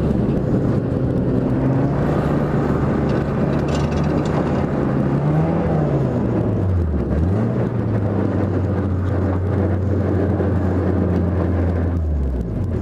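Dodge Neon compact race car's four-cylinder engine running at low, steady revs, heard from inside the car, with a brief rise about halfway through and a quick dip in pitch just after.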